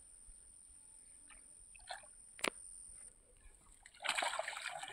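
Water splashing and sloshing, starting suddenly about four seconds in, as a fishing net holding tilapia is hauled up out of shallow, grassy water. Before that it is quiet apart from a single sharp click.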